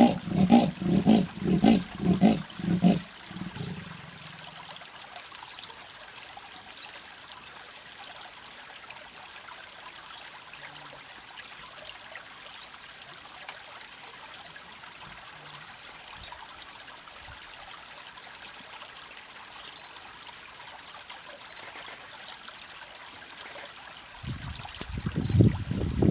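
A leopard's sawing call: a run of about eight rough, rasping strokes, roughly two a second, fading out after about three seconds. Then a long steady faint hiss, until a louder low rumbling starts near the end.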